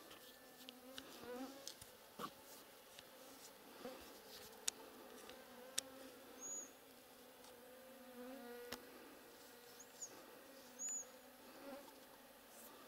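A flying insect buzzing near the microphone: a low, wavering hum that fades in and out. A few short high chirps and a couple of sharp clicks come through over it.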